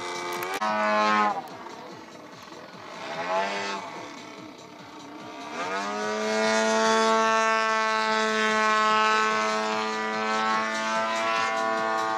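Engine and propeller of a radio-controlled 3D aerobatic model plane in flight. Two short surges of throttle come in the first few seconds, then about six seconds in it holds a steady high-power pitch.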